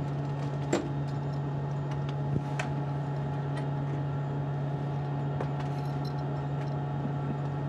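Steady hum of the International Space Station's cabin ventilation fans and equipment, with a couple of faint clicks.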